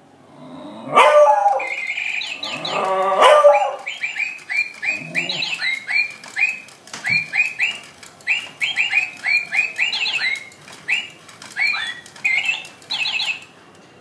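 A beagle barks twice, about a second and three seconds in, then a toy parrot plays a long run of quick repeated electronic chirps and tweets that stop shortly before the end. A single sharp knock comes around seven seconds.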